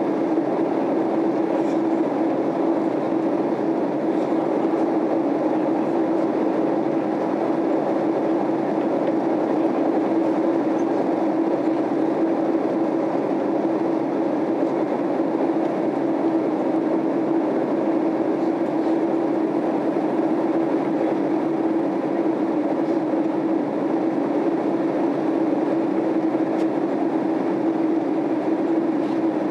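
Boeing 767-300 airliner cabin noise in flight, heard from a rear seat: a steady drone of jet engines and airflow with a constant low hum, unchanging throughout.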